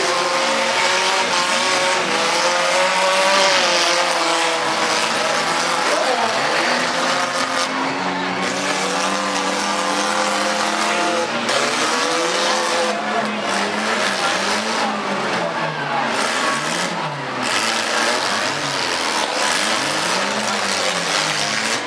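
Engines of several demolition derby compact cars revving up and down at once as they drive and ram one another, their pitches rising and falling over each other.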